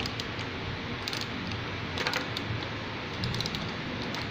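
Scattered light metallic clicks and taps of hand tools working on a motorcycle's front fork while the clamp bolts are loosened to free the fork tube, over a steady background hiss.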